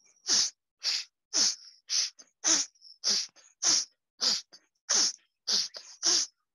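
Bhastrika pranayama breathing: sharp, forceful exhalations through the nose in a steady rhythm, about two puffs a second.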